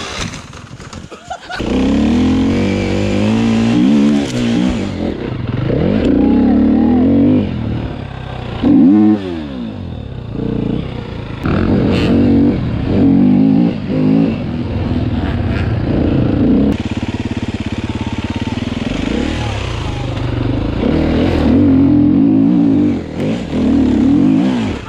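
Enduro dirt bike engines revving and accelerating, the pitch rising and falling again and again with the throttle.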